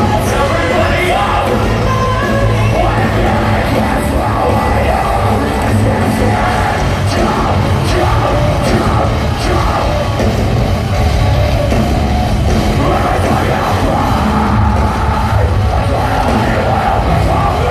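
Live post-hardcore band playing loudly, with yelled and sung vocals over distorted guitars, bass and drums.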